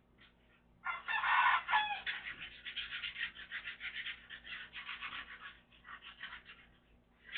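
Chicken calling: a loud call about a second in, then a rapid run of short clucks that fades out near the end.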